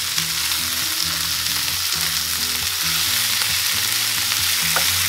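Raw ground beef sizzling steadily in hot oil in a non-stick frying pan, just added on top of softened onion and garlic to brown. It is being stirred and broken up with a wooden spoon.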